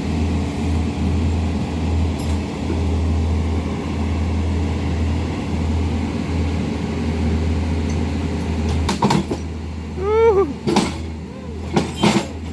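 Excavator diesel engine running steadily. Near the end come a few sharp knocks and a short pitched squeal that falls in pitch.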